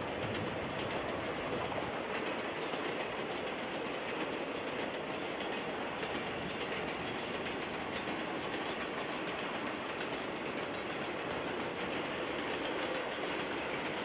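Intermodal container train's railcars rolling past, a steady unbroken noise of steel wheels on the rails.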